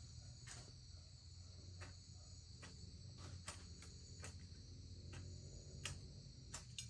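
Crickets chirring steadily over a low hum, with light clicks or taps about once a second.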